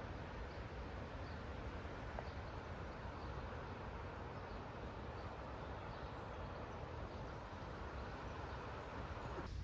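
Steady outdoor background noise with faint, high chirps repeating about once a second, cut off abruptly just before the end.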